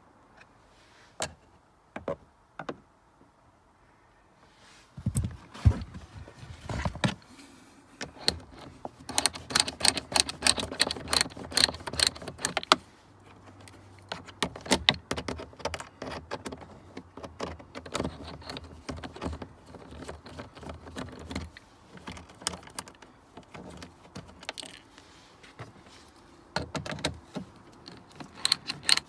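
Ratcheting screwdriver clicking as the glovebox screws are undone, with taps and rattles of the tool against plastic dashboard trim. A few separate clicks at first, then quick runs of ratchet clicks from about five seconds in.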